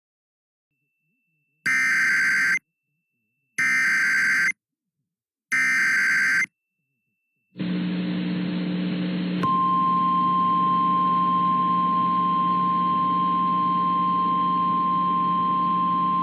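Emergency Alert System SAME header: three harsh one-second digital data bursts about two seconds apart. A hissing, humming radio channel follows, and then the single steady NOAA Weather Radio 1050 Hz warning alarm tone, signalling a tornado warning.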